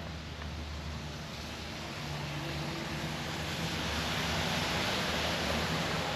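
A motor vehicle passing, its low engine hum and tyre noise swelling to a peak about two-thirds of the way through.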